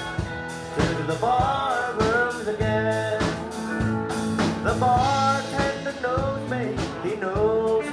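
Live country band playing: electric guitar, drum kit and keyboard, with a steady drum beat and a sung or lead-guitar melody over it.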